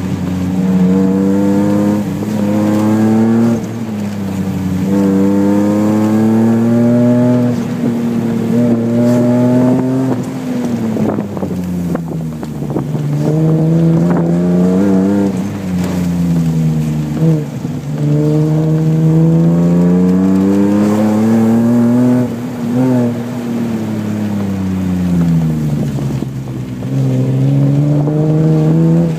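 A BMW's engine during an autocross run, revving up under acceleration and dropping back repeatedly as the driver lifts and shifts: several long climbs in engine pitch, each followed by a fall. There are quick breaks in the revs about 4 seconds in, and twice more after the middle.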